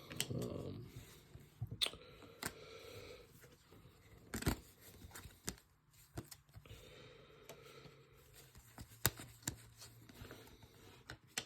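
Trading cards being handled and set down on a surface: faint rustling with a few scattered sharp clicks.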